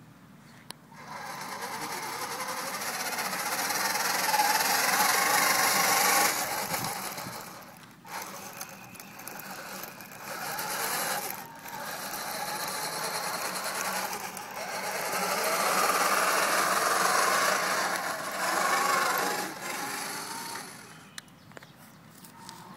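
Drive motors and track running gear of a homemade 1:10-scale RC amphibious tank, running as it drives over dirt. The sound swells and fades with the throttle and drops out briefly a few times.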